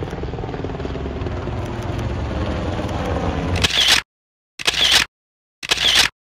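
Black Hawk helicopter flying past, steady rotor and engine noise that cuts off abruptly about three and a half seconds in. Then camera shutter clicks, about one a second, with silence between.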